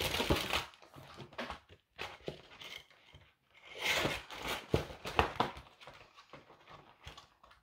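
Packaging of a diamond painting kit being unwrapped by hand: scattered crinkling and tearing rustles with small clicks, strongest near the start and again about four to five seconds in.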